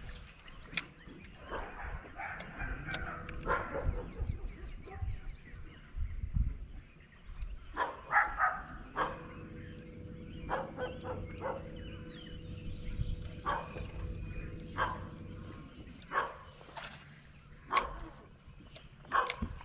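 A dog barking in short bouts, over a steady low hum and scattered sharp clicks.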